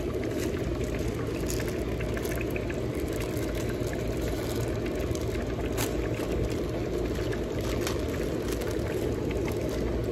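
Oxygen bubbling steadily through a bottle of distilled water that humidifies the flow to a nasal cannula, a continuous even churning.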